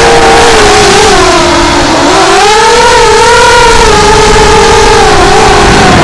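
Emax 2205 2300 kV brushless motors spinning 5x4.5 bullnose propellers on a 4S 210-size FPV racing quadcopter, a loud whine heard through the onboard camera's microphone. The pitch changes with the throttle, dipping about two seconds in and then climbing again.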